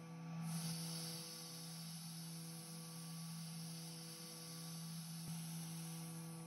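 Steady low hum of a small CNC mill running, its spindle turning a single-flute 1/8-inch end mill through a pocket in a metal part. A faint wavering comes about twice a second.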